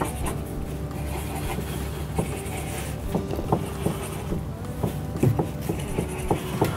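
Felt-tip markers tapping and scratching on paper as polka dots are drawn, many small irregular taps over a steady low hum.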